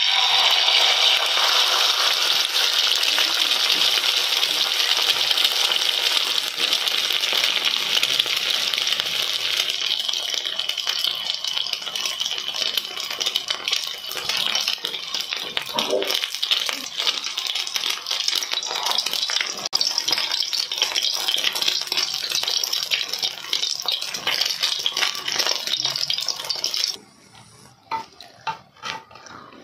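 An egg sizzling in hot oil in a frying pan. The hiss starts suddenly as the egg hits the oil, eases a little after about ten seconds, and cuts off sharply near the end.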